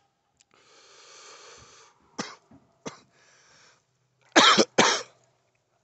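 Harsh coughing: a few short coughs, then two loud coughs in quick succession about four and a half seconds in.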